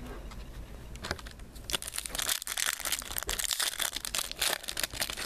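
Foil wrapper of a Topps Platinum football card pack crinkling and tearing as it is pulled open by hand, a dense crackle that starts about two seconds in, after a single soft click.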